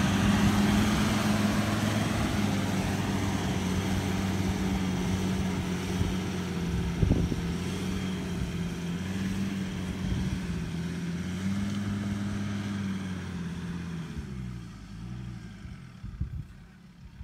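Ford Ranger pickup's engine pulling hard in low gear as it tows a trailer loaded with a skid-steer loader through soft sand, a steady note that wavers slightly in pitch. It fades as the truck moves away, with the pitch dipping near the end, and there is one brief knock about seven seconds in.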